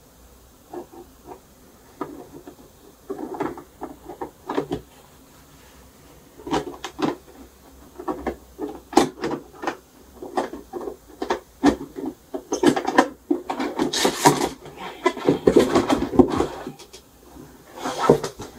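A shoe box being put together by hand: a string of light knocks, clicks and rubbing scrapes as its parts are handled and fitted, busiest about two-thirds of the way in.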